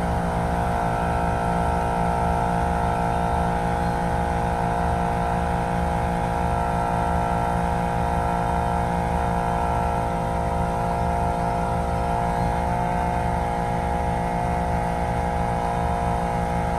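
Portable twin-cylinder 12-volt air compressor (tire inflator) running steadily as it pumps up a car tire, a constant hum over a fast low pulsing from its pistons.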